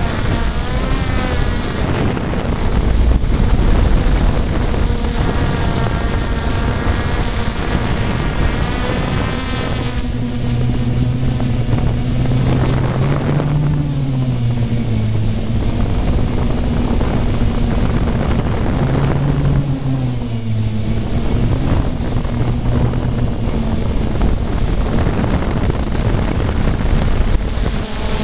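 A drone's motors and propellers running steadily, heard close from the camera mounted on it, their pitch rising and falling as it manoeuvres low over the ground.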